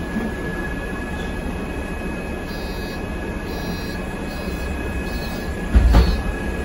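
City bus engine idling, heard from inside the cabin as a steady low rumble with a constant high whine. Faint high beeps repeat about once a second from about two and a half seconds in, and a single heavy thump comes near the end.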